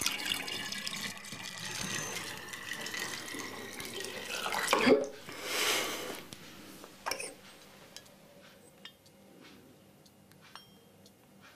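Dark cherry liqueur being poured from a jug through a funnel into a glass swing-top bottle, a steady stream of liquid filling the bottle. After about five seconds the pouring stops and a few light clicks follow.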